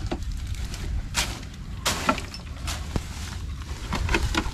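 Several sharp knocks, spread over a few seconds, against a steady low rumble.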